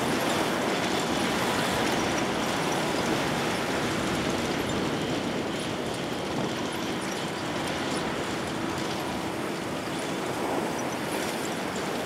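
Farm tractor towing a beach-cleaning sand sifter: the engine runs steadily under the machine's continuous rattle, slowly growing quieter as it moves away.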